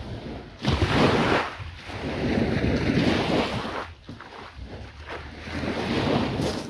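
Wind buffeting the microphone over surf washing on the beach. The noise rises and falls in long surges of a second or two.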